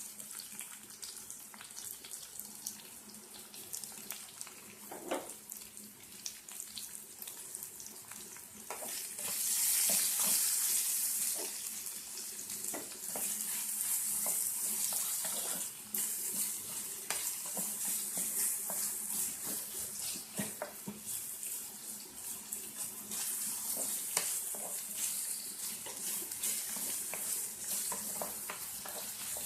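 Chopped onions frying in hot oil in a pan: a steady sizzle with scattered small clicks, growing louder about nine seconds in.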